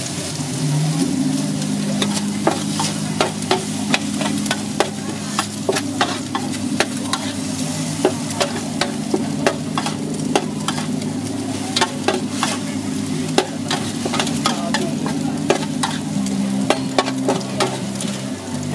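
A metal spatula scraping and clanking against a large metal wok while egg noodles and vegetables are stir-fried, with quick, irregular clanks over a steady sizzle. A steady low hum runs underneath.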